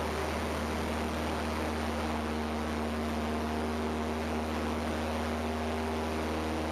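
Cessna 172P's four-cylinder Lycoming O-320 engine and propeller running steadily at takeoff power during the roll down the runway, heard from outside under the wing, with a constant rush of wind over the microphone.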